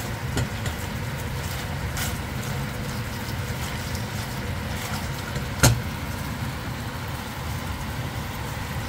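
Wooden spatula knocking and scraping against a stainless steel pot while glazed konnyaku balls are stirred, with a few short knocks; the loudest comes a little past halfway. A steady low rumble runs underneath.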